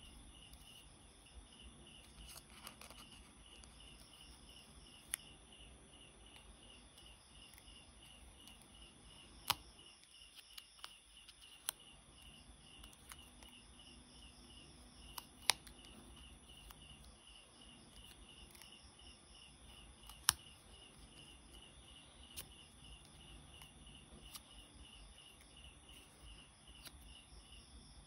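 Paper cutouts handled and set down on a paper sheet: faint rustling with a few sharp paper taps and clicks, about eight in all. Behind it a cricket chirps in a steady, even rhythm.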